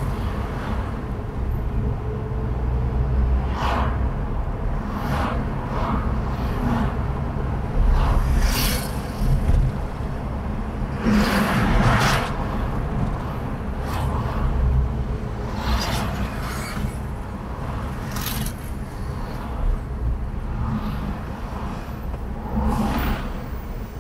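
Car driving on city streets: a steady low engine and road rumble, with brief louder rushes of noise every few seconds.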